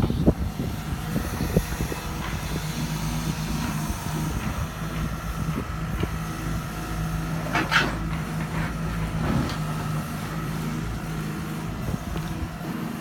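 Hyundai 140 excavator's diesel engine running steadily while the machine digs, with a few knocks near the start and one short sharp noise a little past the middle.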